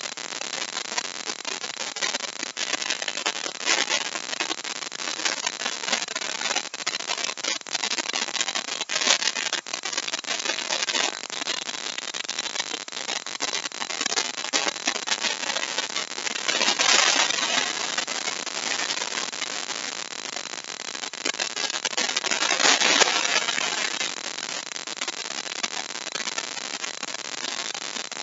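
Handheld compact router running and cutting a deep mortise in a wooden board: a dense, crackling noise of the bit chewing through the wood. It swells louder twice in the second half.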